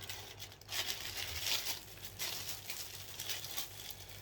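Packaging and paper rustling and crinkling in irregular bursts as the contents of a box are handled.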